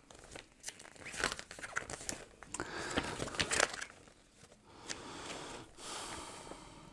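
Pages of a thin paper user manual being turned and handled: irregular rustling and flicking of paper with a few sharper page snaps.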